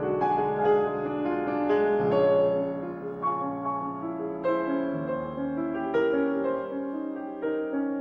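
Background music: a slow piano piece of sustained notes and chords that change every second or two.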